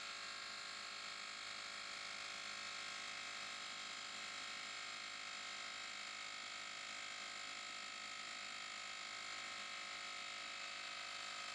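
Cordless handheld tire inflator's compressor running steadily, faint and even, with a thin steady whine of several tones while it pumps up a car tire.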